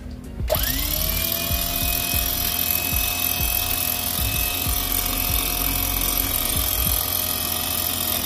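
Electric winch motor starting about half a second in, its whine rising quickly in pitch, then running steadily with a strong hiss until it cuts off near the end.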